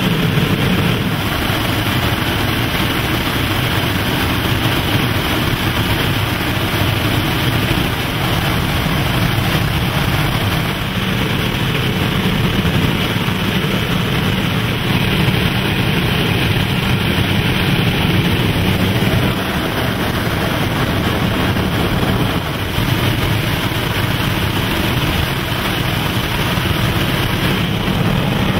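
Steady cockpit noise of a Beechcraft King Air's twin turboprop engines and rushing airflow during a steep, fast descent: a dense, even drone with most of its weight low down.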